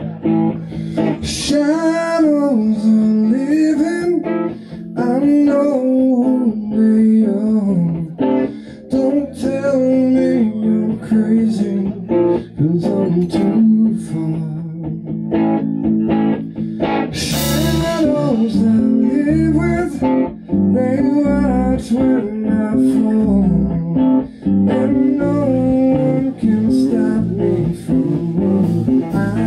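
Live rock band playing: a bending, wavering lead melody over bass guitar and drum kit. There is a cymbal crash about a second and a half in and another about halfway through.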